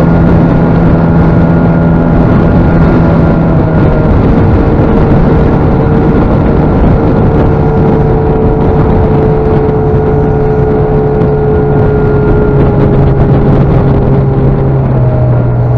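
Boat's outboard motor running steadily under way, with a constant rush of noise; its pitch eases down a little near the end.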